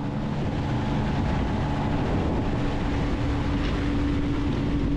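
Outboard motor of a small boat running steadily at speed, with a held engine tone over the rush of water spray off the hull and wind.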